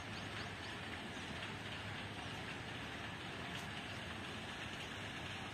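Steady outdoor background noise, an even hiss with no distinct events standing out.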